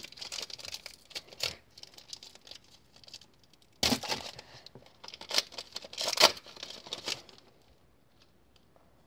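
Foil wrapper of a 2017 Panini Score football trading-card pack crinkling in the hands, then ripped open with a sudden tear about four seconds in. More loud crinkling follows as the cards are pulled out, dying away in the last second or so.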